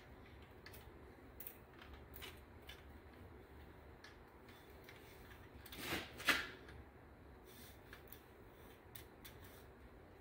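Faint metal clicks and taps of pushrods being handled and lined up in a Chrysler 383 big-block cylinder head, with a brief scrape and a sharper clink about six seconds in.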